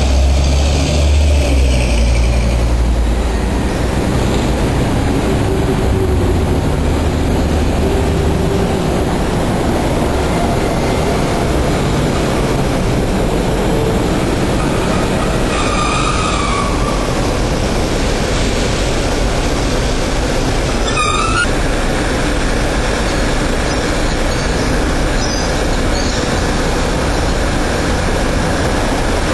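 A rail vehicle running along its track with a steady rumble, heavy and deep for the first several seconds and then lighter. There are two brief squeals a little past the middle.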